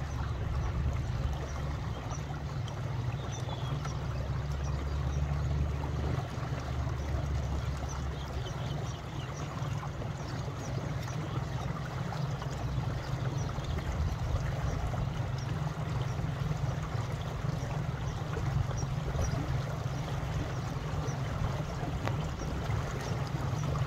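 Steady wind buffeting the microphone, a low rumble, over an even wash of wind and wind-rippled water.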